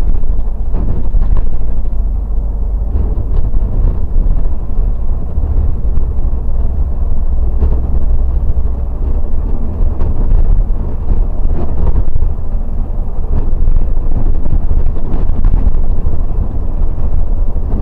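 Loud, steady low rumble of a Mercedes-Benz O500RS 1836 sleeper bus under way, its engine and road noise heard from the front of the cabin.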